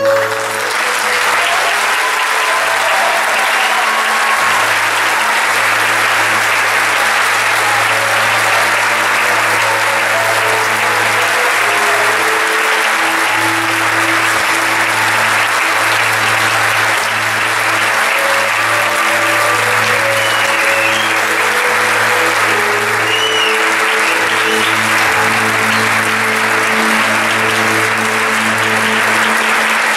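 Theatre audience applauding loudly and steadily, starting as the singing ends, over the orchestra's sustained closing music with a held low bass note.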